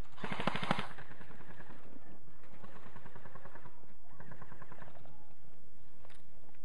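Airsoft electric guns firing full-auto bursts: a loud short rattle in the first second, then several fainter bursts over the next few seconds.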